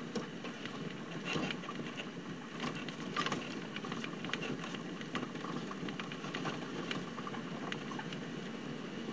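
Land Rover driving over a rough bush track, heard from inside: a steady engine and rolling rumble with irregular knocks, rattles and squeaks from the body and suspension as it bumps along.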